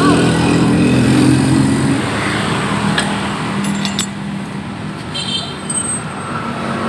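A motor vehicle engine running, louder for the first two seconds and then fading, with a few sharp clicks.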